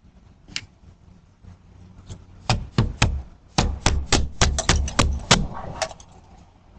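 A quick run of sharp knocks or bangs, about a dozen irregular blows over some three seconds, starting about two and a half seconds in.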